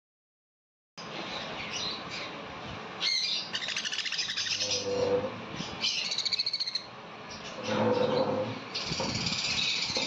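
Baby conure chick giving rapid, pulsing begging chirps as it is hand-fed from a syringe with a rubber tube. It is silent for about the first second, then chirps in bursts with a few lower calls, densest near the end.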